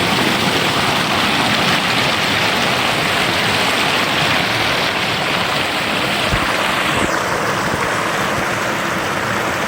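River water flowing fast and rushing steadily, close and loud, with one brief low thump a little past the middle.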